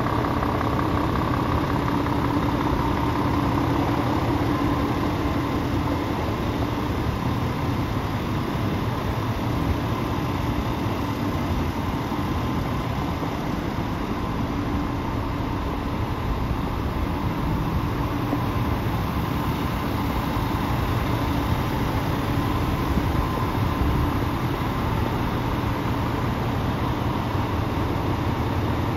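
Scania P450 tractor unit's turbocharged Euro 6 diesel engine idling steadily.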